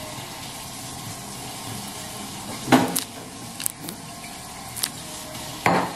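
Kitchen food-preparation sounds: a steady hiss with several short knocks and clatters, the loudest a little under three seconds in.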